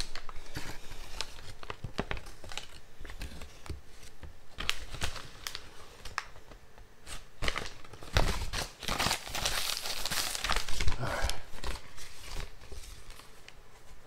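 Packaging being handled and torn open close to the microphone: crinkling plastic wrap and tearing, with many small crackles and clicks. The rustling gets thicker and louder for a few seconds just past the middle.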